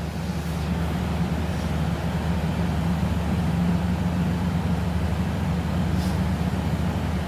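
Royal Enfield Interceptor 650's parallel-twin engine running steadily, with no squeak from the front wheel's speed sensor now that it has been greased.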